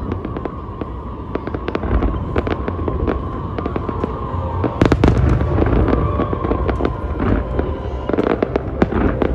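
Display fireworks going off in a rapid barrage of sharp crackling reports and deeper booms, growing louder about five seconds in.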